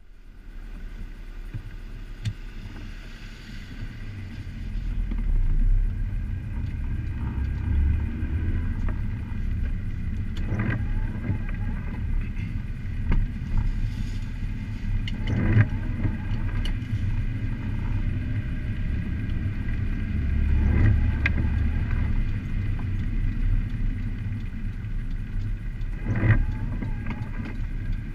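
Car cabin noise while driving on wet streets: a steady low rumble of engine and tyres, with brief rattles every five seconds or so.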